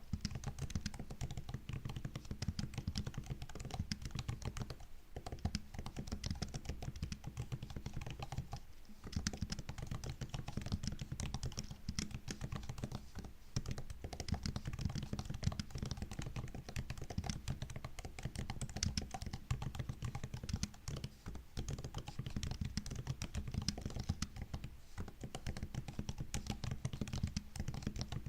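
Fast, continuous typing on a MacBook's low-profile laptop keyboard, a dense run of soft key clicks and taps with a few brief pauses.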